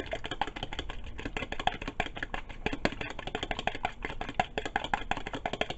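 A fork beating a raw egg in a bowl: a fast, steady run of light clicking taps against the bowl that stops at the end.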